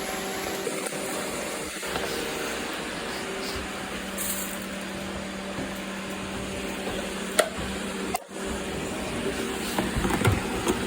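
Robot vacuum cleaner running steadily, a motor hum under a steady suction noise, as it picks up confetti. There are a few light clicks and knocks, a couple near the end.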